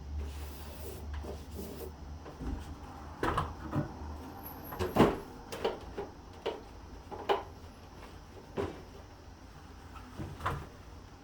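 Mini-split indoor unit being handled against its wall-mounting bracket: a run of about ten irregular knocks and clunks, the loudest about five seconds in, after a low hum at the start.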